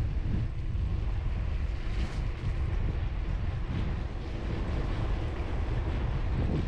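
Wind rumbling on the microphone while riding a bicycle: a steady, gusty low rumble.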